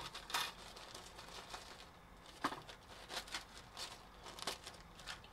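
Small clear plastic bag crinkling faintly as it is handled, with a few soft clicks scattered through.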